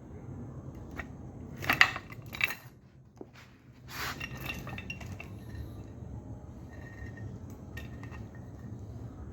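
Metal chain and carabiners clinking and rattling against weight plates in a few sharp bursts, the loudest about two seconds in and another cluster about four seconds in.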